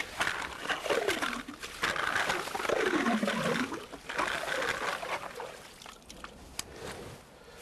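Hand ice auger grinding and scraping as it is turned through metre-thick river ice, in uneven strokes with swooping changes in pitch. The sound drops away about six seconds in as the auger is lifted out of the hole.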